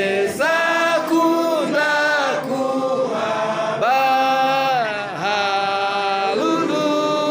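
A congregation singing a slow song in voices alone, moving between long held notes.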